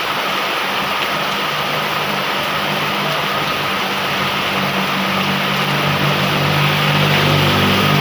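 Heavy rain falling steadily, with a motor vehicle's engine running under it and growing louder over the last few seconds as it draws closer.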